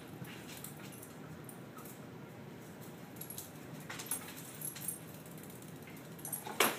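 A dog moving about and nosing on a hardwood floor: scattered light clicks of its claws on the wood, with one sharper click near the end.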